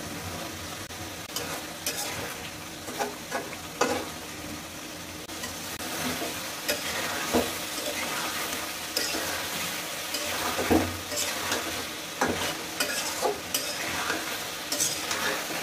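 Chicken pieces and tomato chunks sizzling in hot oil in a kadai, stirred with a metal spatula that scrapes and knocks against the pan at irregular moments.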